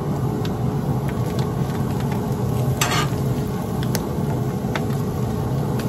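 Shaved beef, onions and mushrooms sizzling on a cast-iron griddle while a metal spatula scrapes and taps across it, with one longer scrape about three seconds in. A steady low hum runs underneath.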